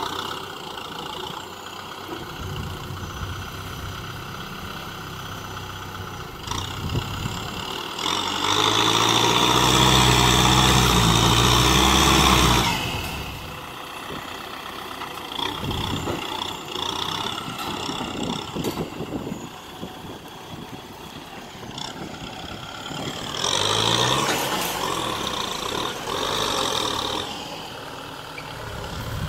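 Kubota M6040SU tractor's diesel engine working while the tractor pushes dirt with its front blade. It revs up hard for about four seconds, a third of the way in, then drops back. It rises again near the end.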